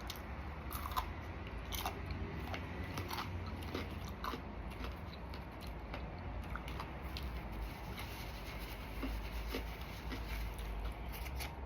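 A person biting and chewing crispy fried chicken, with irregular small crunches and mouth clicks throughout.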